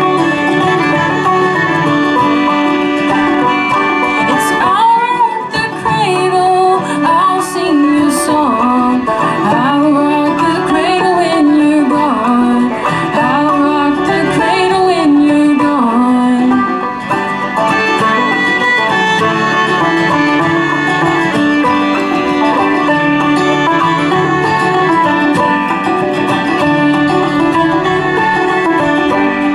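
Bluegrass string band playing an instrumental break, with banjo and guitar picking and a lead melody line that slides between notes.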